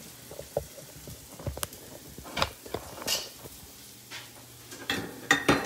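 Handling noise from a camera being taken off its mount and carried by hand: scattered knocks, clicks and rubbing, with a louder clatter near the end.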